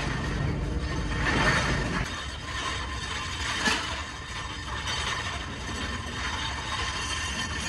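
Steel rotavator blades clattering and scraping in a steel wheelbarrow as they are raked with an iron rod, with a sharp metal clink a little past the middle. A low machinery rumble sits under the first couple of seconds.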